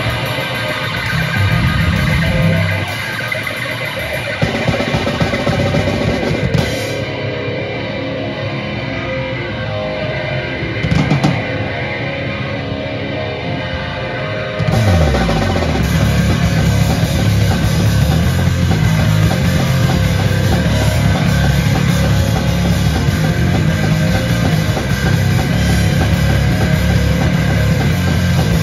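Live metal band playing loud through amplifiers: distorted electric guitars, bass and a drum kit. After a lighter stretch the full band comes in harder and louder about fifteen seconds in.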